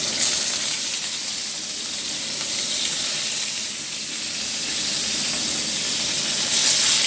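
Fish frying in very hot oil in a pan: a steady sizzle that swells briefly about a quarter second in and again near the end.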